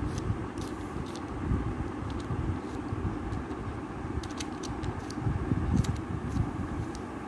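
Plastic tiles of a 15-puzzle sliding puzzle clicking now and then as they are pushed into place, some in quick runs, over a steady low rumbling noise.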